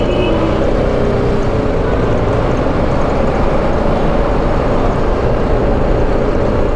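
BMW G310 GS single-cylinder motorcycle engine running steadily under way, heard through a dense rush of wind noise on the rider's microphone.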